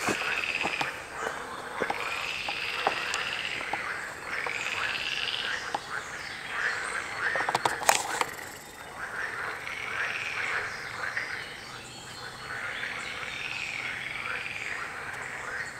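Frogs calling in a chorus: pulsed croaking calls repeating every second or two. There is a sharp click about eight seconds in.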